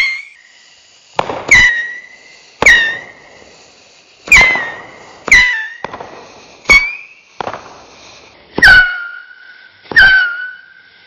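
A Saturn missile battery firing its small rockets: about nine sharp cracks, roughly one a second, each followed by a short whistle that drops in pitch and then holds.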